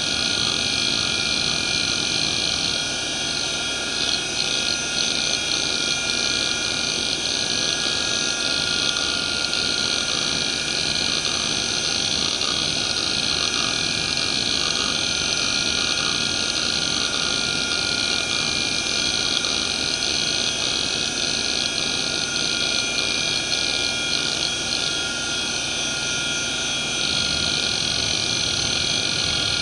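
A Fuji Electric FK319A-240R 240 MB hard drive (1993) runs a seek test, its head actuator sweeping back and forth in a rapid, continuous run of seek ticks. Under the ticks is the steady whine of the spindle, whose bearings are worn and noisy. The seek sound changes pattern about three seconds in and again near the end.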